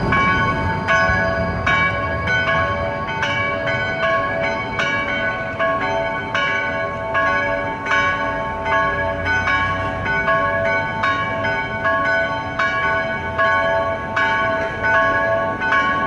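Several church bells ringing together in a full peal, strokes of different pitches coming about every half second and overlapping as each one rings on.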